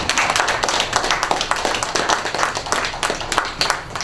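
Audience applauding: many hands clapping at once, easing off near the end.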